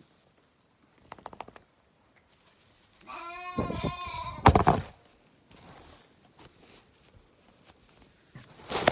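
A Zwartbles lamb bleats once, a long quavering bleat about three seconds in, cut off by a loud knock. There is a quick patter of clicks about a second in and another loud knock near the end.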